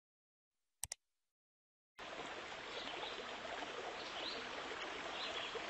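Two quick clicks, then, starting abruptly about two seconds in, a steady rushing noise like running water.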